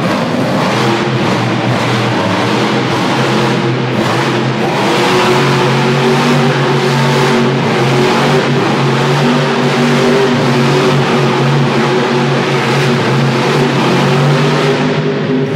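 Off-road truck's engine running loud and continuously at high revs, its pitch stepping up and down as the truck drives.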